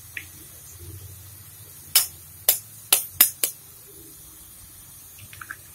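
An egg tapped on the rim of a metal frying pan to crack it: five sharp knocks in quick succession, starting about two seconds in.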